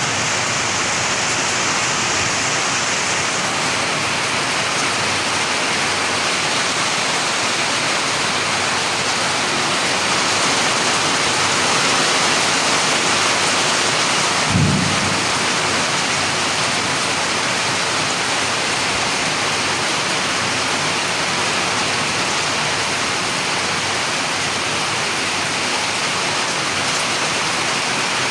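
Heavy rain falling steadily, a dense even hiss, with one short low thump about halfway through.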